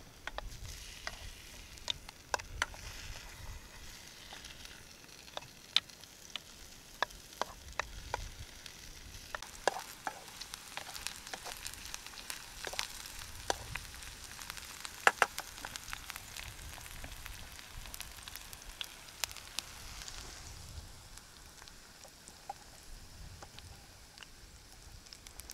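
Food sizzling in a frying pan set on campfire embers, stirred with a wooden utensil, with many sharp pops and crackles; the sizzle drops away near the end.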